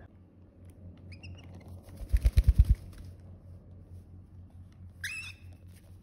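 Young cockatiel chirping: a short rising chirp about a second in, and a louder call about five seconds in. Around two seconds in there is a quick run of about seven loud, low thumps, the loudest sound here.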